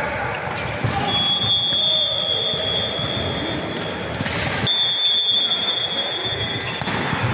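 Volleyball being played in a large indoor hall: ball hits and court noise, with a steady high-pitched tone held for about three seconds, broken briefly by a loud burst of noise about four seconds in, then held again.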